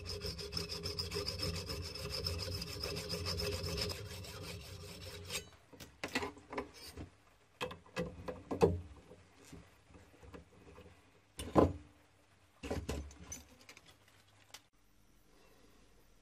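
Hacksaw cutting through a brass rod held in a lathe chuck: a steady rasping for about five seconds that then stops. After it come scattered sharp metallic clicks and knocks as the chuck and the cut piece are handled, the loudest about midway.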